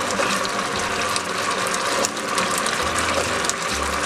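Thick chilli paneer gravy sizzling and bubbling in a hot non-stick pan, a steady dense crackle, with a silicone spatula stirring through it.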